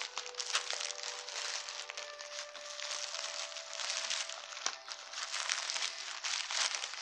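Packaging being handled and unwrapped: continuous crinkling and rustling with many small crackles.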